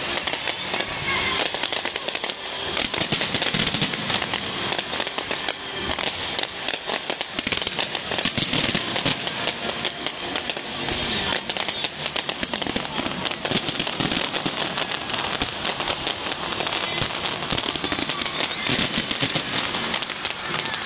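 Fireworks display: a continuous stream of bangs and crackling from bursting shells, many overlapping each second.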